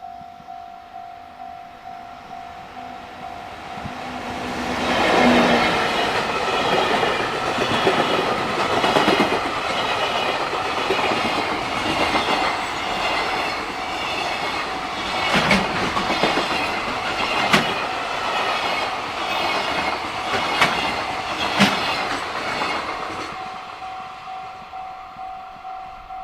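Level crossing warning bell ringing in a steady pulse of about two strokes a second. From about four seconds in, a JR Freight train passes for some twenty seconds, its locomotive and wagons rumbling with sharp clacks of wheels over rail joints. The bell is heard on its own again near the end.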